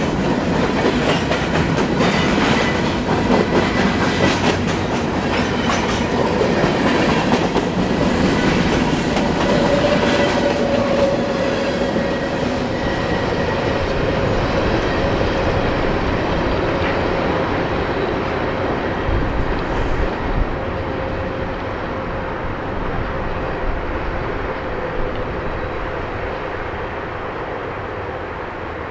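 Empty grain train of covered hopper cars rolling past, its wheels clacking over the rail joints, with a faint steady high tone through the middle; the sound slowly dies away toward the end as the train clears.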